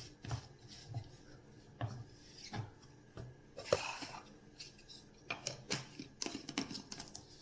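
Plastic shaker-cup lids being screwed on and handled on a stone countertop: scattered rubbing scrapes and small clicks, with one sharper knock a little after halfway.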